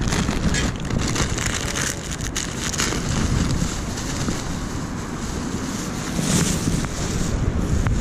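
Wind buffeting the microphone, a steady low rumble with hiss, with scattered faint clicks and rustles.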